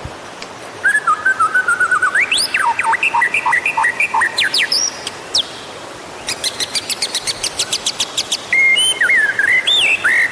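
White-rumped shama singing: loud, varied whistled phrases that slide up and down, broken about six seconds in by a fast run of dry ticking notes, then more whistles.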